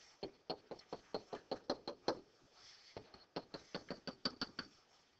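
A stylus tapping out short dashes on a tablet screen: two quick runs of light clicks, about five or six a second, with a pause of under a second near the middle.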